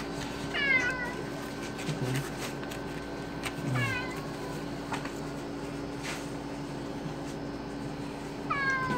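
Stray tomcat meowing from inside a plastic pet carrier: three short meows, each falling in pitch, about a second in, near four seconds in, and at the very end.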